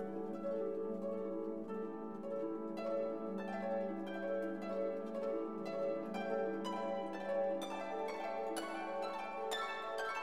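Instrumental background music: plucked string notes over sustained tones, with the notes coming more thickly in the second half.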